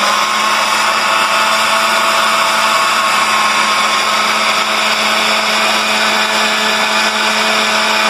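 Countertop blender running at a steady speed, blending corn masa dough with water into a thin liquid: a constant motor whine over the churning of the mix.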